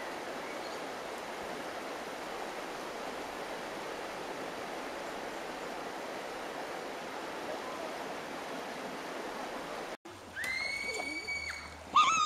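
Shallow river rapids: water rushing steadily over rocks for about ten seconds. After a sudden break, a long high held note and then, near the end, a loud wavering shout.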